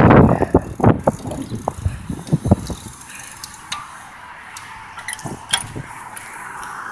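A loud burst of rustling noise, then a run of light clicks and rattles that die down about three seconds in to a faint steady background with a few scattered ticks.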